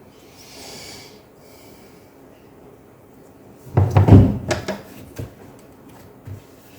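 A cluster of sharp plastic knocks and clatter about four seconds in, followed by a few lighter clicks: a laptop keyboard being pressed and seated into its case.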